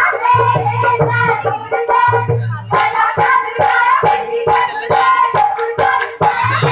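Women singing a Punjabi giddha folk song over a drum beat and hand claps. About three seconds in, the singing drops back and quick, sharp claps and percussion take over.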